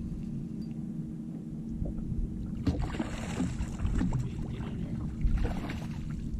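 Sound on a bass boat while a hooked bass is played on a spinning rod: a steady low hum over water and wind rumble. A louder stretch of crackling, rustling handling noise comes from a little under three seconds in until near the end.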